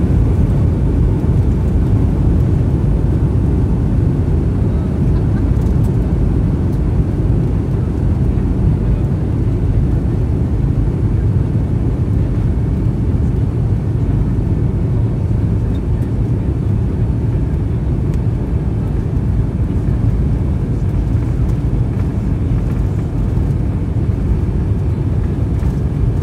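Steady low rumble of jet airliner cabin noise from the engines and airframe while the plane moves along the ground before takeoff.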